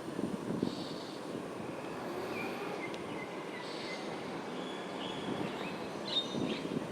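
Morning birdsong: short chirps and whistled notes from several birds, heard over a steady low rumble of distant background noise.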